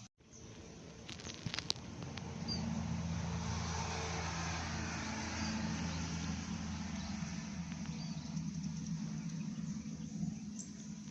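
Intercity diesel bus driving past, its engine and tyre noise swelling over about two seconds, holding, then slowly fading as it goes away. A few sharp clicks come about a second and a half in.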